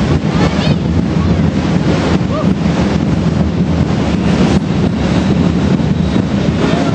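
Loud, steady rumbling din of a murga street parade and its crowd, blurred and distorted on the camera microphone.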